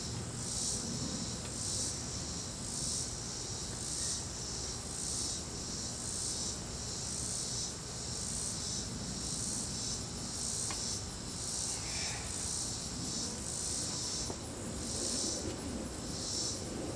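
Cricket chirping in a steady run of high-pitched pulses, a little under twice a second, over a low background hum.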